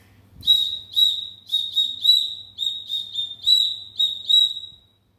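A small toy whistle blown in a quick run of about eleven short, high toots, all at the same pitch. The toots stop a little before the end.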